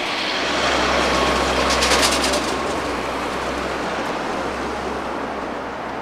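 A motor vehicle's engine rumble and road noise, swelling over the first two seconds, with a brief rapid rattle about two seconds in, then easing off.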